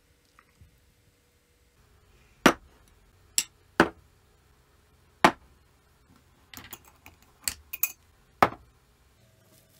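Glass and crockery clinking and knocking on a kitchen counter as bowls and a clip-top glass jar are set down and handled: about eight sharp separate knocks, starting a couple of seconds in, with a quick cluster near the end.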